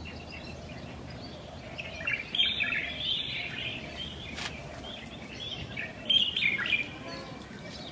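Birds chirping and twittering in quick clusters, busiest about two seconds in and again around six seconds in, over a steady low background hiss, with one sharp click midway.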